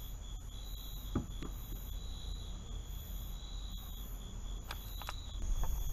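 Crickets trilling steadily, with a higher insect call pulsing about once a second over it. There is a light knock about a second in.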